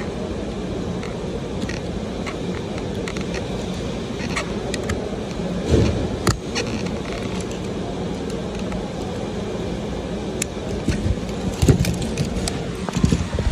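Steady machine hum in the background, with light plastic clicks and taps as a Toyota key fob's case halves are handled and pressed shut, the sharpest click about six seconds in. A few dull bumps come near the end.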